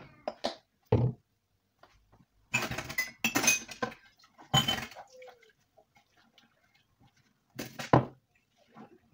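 Dishes being washed by hand in a stainless steel sink: glasses, mugs and plates clink and knock against each other, with louder splashes of water. Near the end, water is poured out of a mug.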